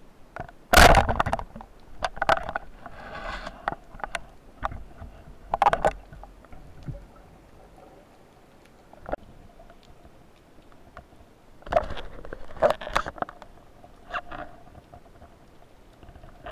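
Underwater sound through an action camera's waterproof housing: scattered clicks and knocks and several loud rushes of water and bubbles. The loudest comes about a second in, with more around the middle and near the end.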